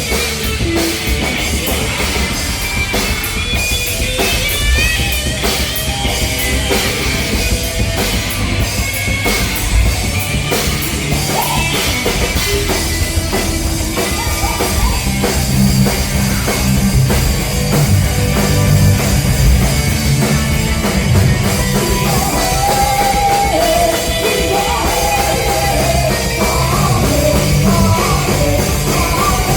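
Rock music played by a band, with a drum kit and singing.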